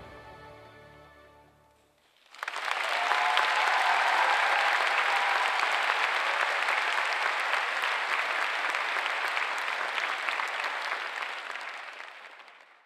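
The last notes of the orchestral music fade out, then an audience starts applauding about two seconds in. The clapping holds steady and fades away near the end.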